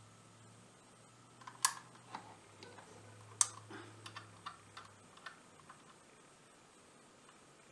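A string of light clicks and taps, two sharper than the rest, as a soldering iron tip and wire solder are worked against a crimped ring terminal on a wire. A faint low hum runs beneath them and stops about five seconds in.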